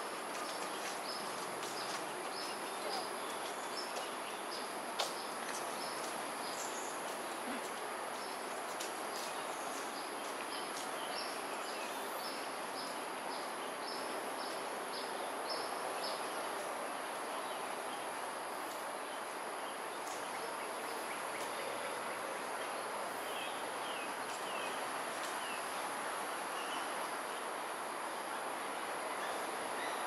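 Steady outdoor background noise of a city, with a thin high insect-like whine throughout and a bird repeating a short high note about twice a second for the first half; one brief click about five seconds in.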